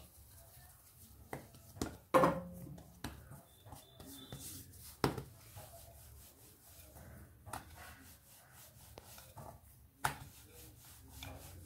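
Wooden rolling pin rolling dough out on a floured rolling board: soft rubbing and rolling strokes, broken by a few sharp wooden knocks, the loudest about two seconds in and others around five and ten seconds in.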